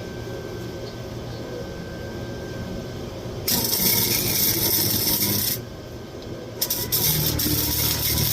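Welding arc crackling in two bursts of about two seconds each, the first starting about three and a half seconds in: tack-welding a steel hanger onto an exhaust pipe with the welder set hot.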